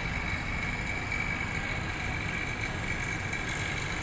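Refrigerant vacuum pump running steadily while it evacuates the lines of a newly installed split air conditioner: a constant drone with a thin high whine over a low rumble.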